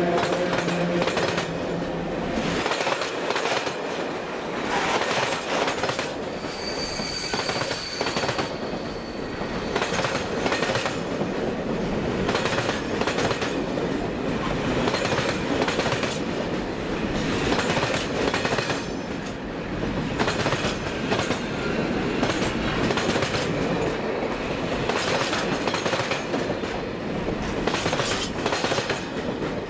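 Container freight wagons rolling past close by, the wheels clicking rhythmically over the rail joints. A humming tone from the passing EU07 electric locomotive ends about two and a half seconds in, and a short high wheel squeal rings out about seven seconds in.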